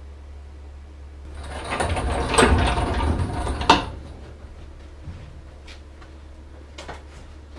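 Scraping and handling noises from someone working on the bare car body, running for a couple of seconds and ending in a sharp knock, then a few light clicks. A steady low hum runs underneath.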